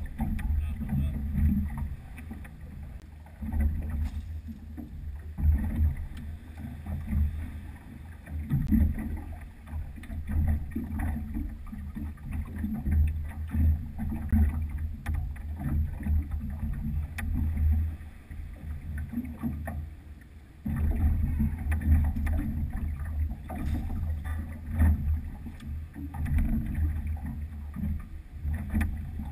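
Low, uneven rumble of a small boat on open water, swelling and easing, with a quieter stretch shortly after halfway that comes back suddenly about two-thirds through.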